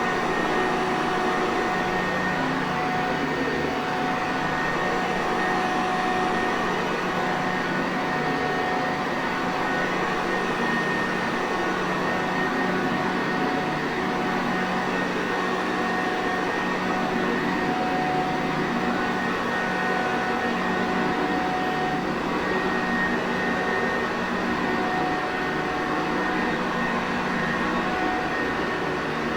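Sanitaire Perfect upright vacuum cleaner running steadily, an even whooshing rush of air with a few faint steady whining tones over it.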